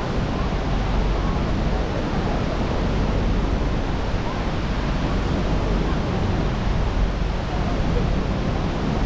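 Steady rushing noise of the American Falls and the churning river, with wind buffeting the microphone on the open deck of the tour boat.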